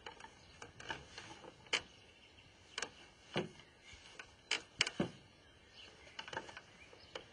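A few scattered, separate knocks and clicks of shoes and feet on wooden deck boards as a woman moves about in newly tried-on shoes.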